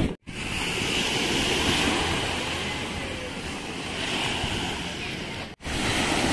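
Small sea waves breaking and washing up a sandy shore: a steady surf hiss, broken by two brief silences, one just after the start and one about five and a half seconds in.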